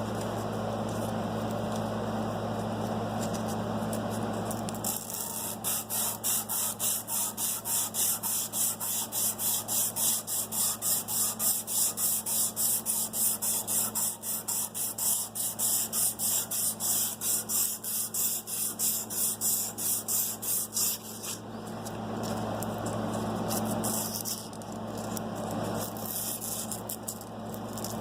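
150-grit sandpaper rubbed by hand along the fuller of a steel sword blade: rapid back-and-forth rasping strokes, about three a second, from about five seconds in to about twenty-one seconds in. A steady low hum runs under the start and the end.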